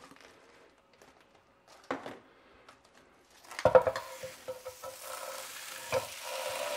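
Frozen shrimp tipped from a plastic tray into a hot electric skillet, with a few sharp knocks of metal tongs and tray against the pan about four seconds in. After that, the shrimp begin sizzling, louder toward the end.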